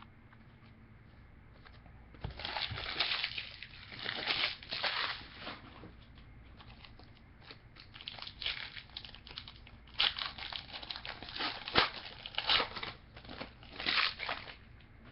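Crinkling and tearing of a trading-card pack wrapper as a 2008 Topps Finest football pack is opened, in two spells of crackly rustling: one starting about two seconds in, the other about ten seconds in.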